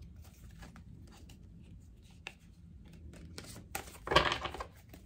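Tarot cards being shuffled and handled: a few light card clicks, then a short, louder riffle of the deck about four seconds in.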